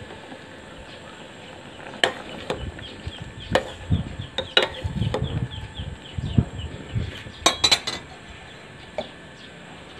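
Metal ladle stirring a pot of boiling sinigang broth, knocking and scraping against the stainless-steel pot in a run of clinks from about two seconds in until near the eight-second mark.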